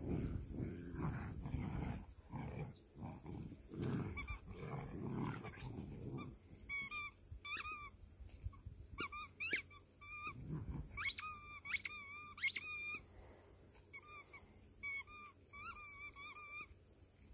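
Irish Wolfhound puppies growling as they tug and wrestle over a toy, followed about six seconds in by a run of short, high-pitched squeaks in quick clusters.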